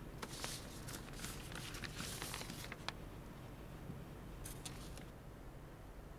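Quiet room tone with faint rustling and a few light clicks: a cluster through the first three seconds and another about four and a half seconds in.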